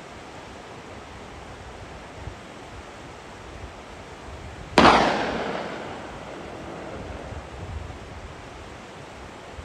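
A single gunshot from a hunting gun about halfway through: one sharp crack that trails off over about a second, over steady background noise.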